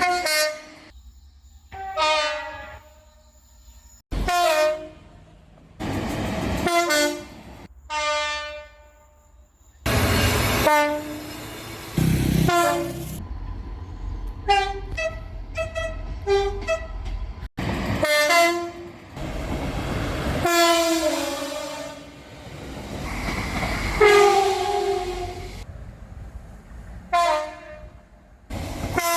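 Train horns of railway locomotives and multiple units sounding in a rapid series of short blasts, many of them two-tone, stepping between a high and a low note, with abrupt cuts from one recording to the next. Rumbling train running noise fills the stretches between some of the blasts.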